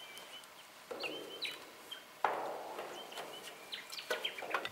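Wild birds calling in bushland: repeated short, high chirps, broken by several louder, harsh, raspy calls about one, two and four seconds in.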